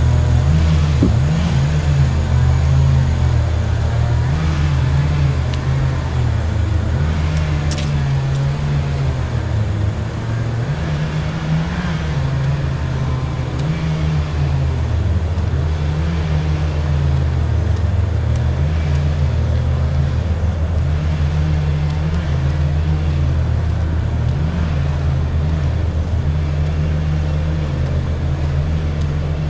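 A motor vehicle's engine running steadily, its low pitch wavering slightly up and down.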